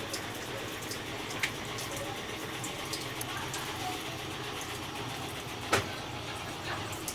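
GE EcoPerformance 15 kg top-load washing machine in its spin cycle: a steady motor hum with water running out through the drain, and two short sharp clicks, one about a second and a half in and a louder one near the end.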